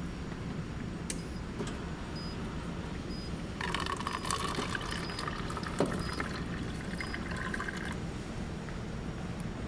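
Water running or pouring for about four seconds, starting a few seconds in and stopping sharply, over a steady low hum of the ferry's engines.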